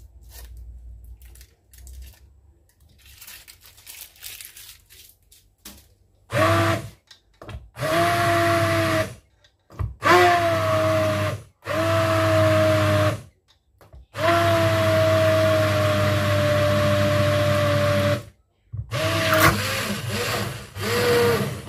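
Hand-held immersion blender puréeing a pot of cooked pumpkin and sweet potato soup, switched on and off in about seven short runs after some faint handling sounds at the start. Its motor whine cuts off sharply at each stop and sags a little in pitch through the longest run, about four seconds.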